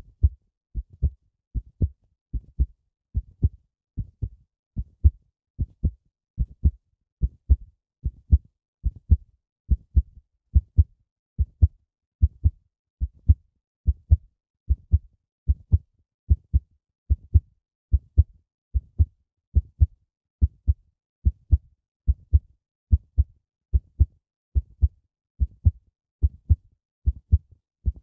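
A heartbeat: steady paired lub-dub thumps, low in pitch, repeating a little faster than once a second.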